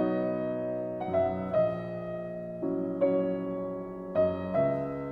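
Piano music: slow chords struck one after another, about six in all, each left to ring and fade before the next.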